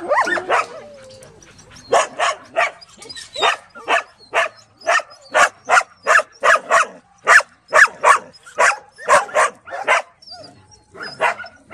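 Dogs barking in a rapid run of short, sharp barks, about two to three a second, with a short lull just after the start and another near the end.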